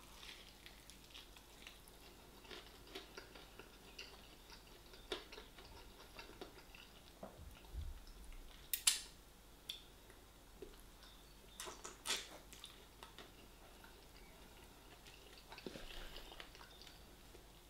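A person chewing a fried chicken drumstick with faint wet mouth clicks and smacks scattered throughout, two louder clicks about nine and twelve seconds in.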